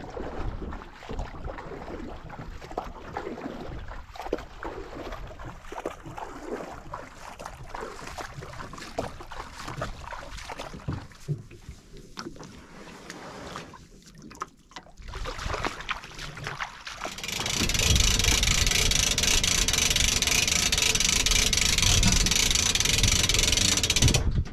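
Wind and water lapping around a small aluminium boat, with scattered small knocks. For the last several seconds a louder, steady hiss takes over.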